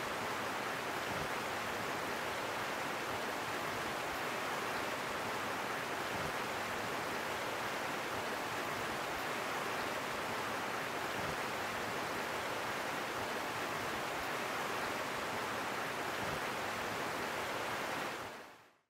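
Shallow river water rushing steadily over rocks and small riffles, an even hiss that fades out near the end.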